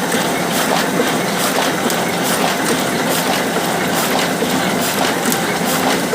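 Solna 225 sheet-fed offset printing press running steadily, its mechanism clattering in a regular rhythm a few times a second over a continuous mechanical whir.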